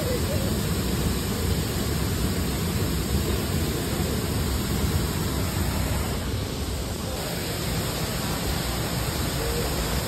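Tibumana Waterfall crashing into its plunge pool: a steady, unbroken rush of falling water.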